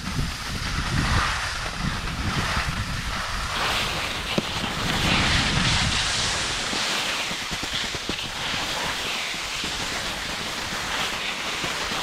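Skis sliding through soft snow with a steady hiss, with wind buffeting the microphone.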